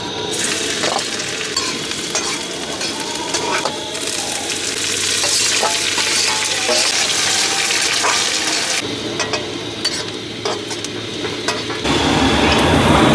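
Curry for sev bhaji frying and sizzling in a pan while it is stirred, the spoon clicking against the metal now and then. The sizzle shifts in strength a few times and is loudest near the end.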